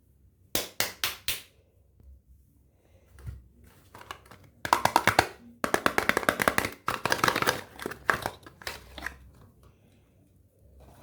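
Bars of soap being cut and handled: four sharp taps in quick succession, then a quick run of crisp clicking strokes from about five seconds in until about nine seconds in.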